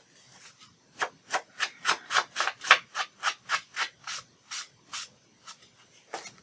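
Ink blending tool rubbed in quick back-and-forth strokes along the edge of a sheet of paper, about three to four strokes a second, slowing to a few scattered strokes near the end: the paper's edge being inked.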